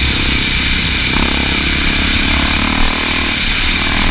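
Honda XR650L's air-cooled single-cylinder four-stroke engine running steadily while being ridden, with a slight rise in revs about a second in.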